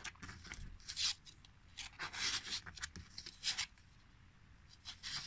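Card gift tags rustling and scraping against each other and the paper pocket as fingers lift and shift them, in several short soft rustles.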